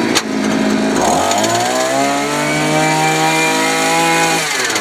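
Jackhammer breaking clay. A click comes just after the start, then the machine's pitch rises about a second in, runs steadily, and winds down near the end.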